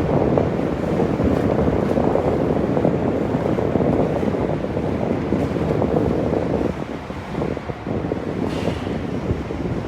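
Wind buffeting the microphone over the rumble of inline skate wheels rolling on pavement. The noise eases a little about two-thirds of the way through.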